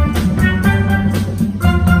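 Steel pan band playing together: many steel drums struck in a quick, steady rhythm, with bright ringing notes over a strong low part.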